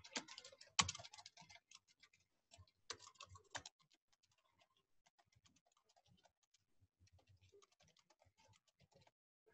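Near silence, with faint scattered clicks and taps in the first few seconds that thin out to a few tiny ticks.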